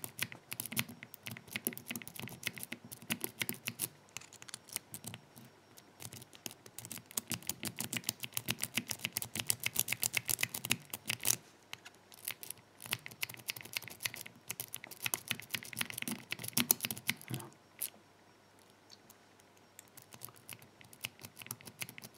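Lock-pick rake scrubbed rapidly in and out of a pin-tumbler padlock's keyway, a fast run of small metallic clicks as the pins are raked on both sides. The raking stops for a couple of seconds near the end, then starts again.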